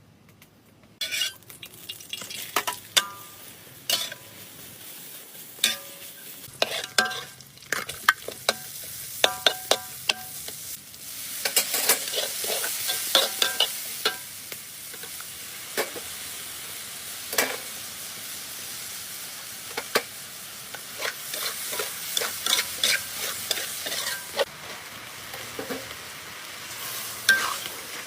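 Fish frying in hot oil in a pan, sizzling steadily, with a utensil repeatedly knocking and clinking against the pan as it is stirred. The sizzle starts about a second in and grows louder around the middle.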